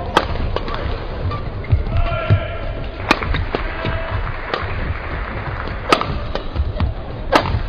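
Badminton rackets striking a shuttlecock in a doubles rally: five sharp hits, roughly a second and a half apart, over steady arena crowd noise with voices.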